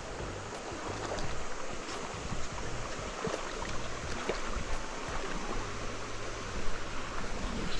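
Steady rushing of flowing stream water, as in a trout stream's riffles and runs.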